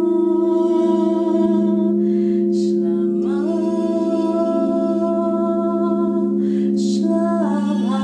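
Quartz crystal singing bowls ringing with steady, overlapping low tones as a wand is circled around a bowl's rim, under a woman's voice chanting a mantra in long held notes. She breaks twice for breath, and each new note slides up into place.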